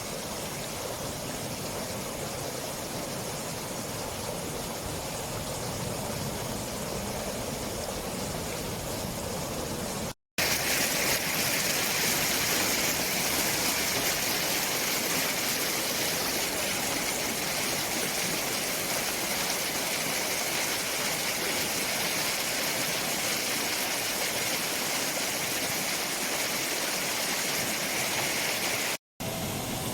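Steady rush of flowing water. It breaks off briefly about ten seconds in and comes back louder and brighter, then breaks off again briefly near the end.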